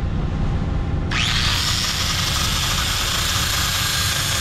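Cordless angle grinder spinning up about a second in with a brief rising whine, then running steadily with its disc against an old steel anchor bolt on a concrete footer, cutting the bolt down. A steady low rumble runs underneath.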